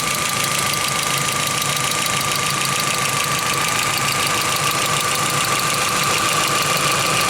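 Volkswagen Sharan's 1.8-litre turbocharged four-cylinder (AWC) engine running steadily with an unpleasant rapid ticking, along with a steady whine. The owner suspects a tapping valve from a worn hydraulic lifter.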